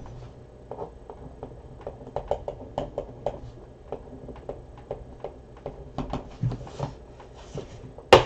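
Trading cards and their plastic holders being handled on a table: a string of light clicks and taps, with one sharper knock near the end.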